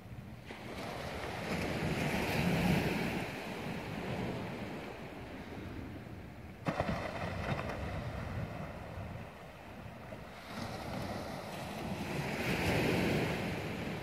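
Waves breaking on a rocky shore, the surf swelling to a peak about two seconds in and again near the end, with a sudden louder rush about halfway through. Wind blows on the microphone.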